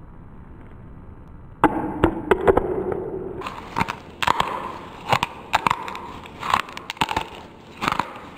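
A loud, rough crackling stretch, then a run of about eight sharp cracks and crunches, spaced roughly half a second to a second apart.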